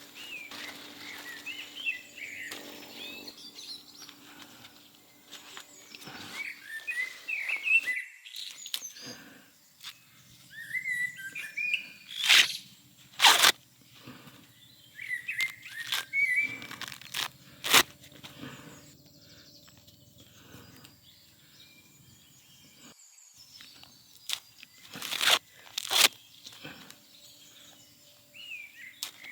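Small birds chirping in short bursts, with several sharp, loud crackles or crinkles in between, the loudest about halfway through and near the end.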